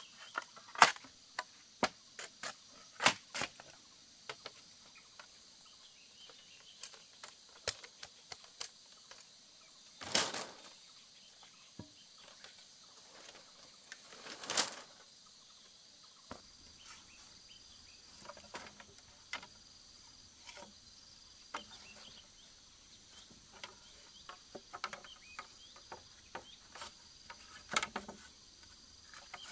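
Scattered sharp knocks and clatters of split bamboo slats and poles being handled, with a machete striking a green bamboo pole near the end. A steady chirring of crickets goes on underneath.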